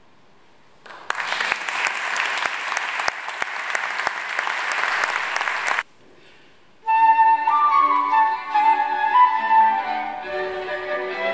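Audience applause for about five seconds, cutting off abruptly. After a short gap a quartet of transverse flute, violin, viola and cello starts playing, with the flute carrying the melody over the strings.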